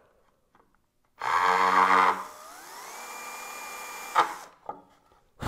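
Cordless drill with a right-angle attachment boring a shallow dent into wood: it runs loud for about a second, then the motor's whine rises in pitch and holds steady before stopping with a click about four seconds in. A short burst of sound follows near the end.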